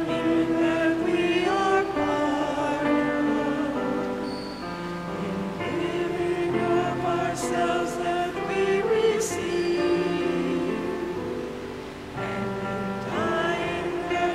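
Church hymn sung by voices over a sustained instrumental accompaniment, the notes held and moving slowly from chord to chord.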